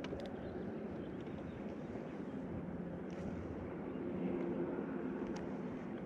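Bass boat's electric trolling motor humming steadily, with a few faint ticks over it.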